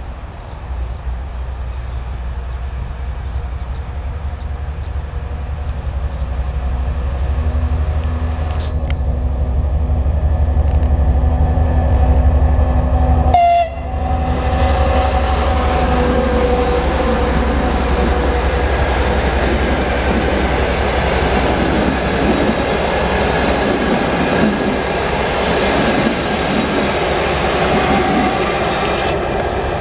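A TEP70BS passenger diesel locomotive approaching with its engine running in a deep, growing rumble, then sounding its horn briefly around the middle as it passes, the pitch sagging slightly. Its passenger coaches follow, wheels rumbling and clattering over the rails.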